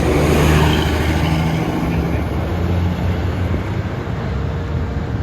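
Road vehicle engine running with a steady low drone, over the noise of traffic.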